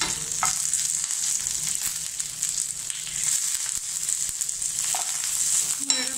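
Tempering of mustard seeds, cumin, dried red chilies, green chilies and curry leaves sizzling in hot oil in a nonstick frying pan, stirred now and then with a spatula.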